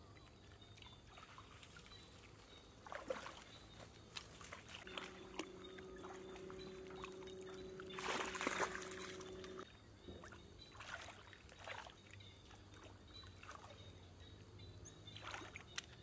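Shallow water splashing and sloshing as a person wades through flooded ground, with a dog splashing through the water loudest about eight seconds in. A steady low hum runs underneath for a few seconds in the middle.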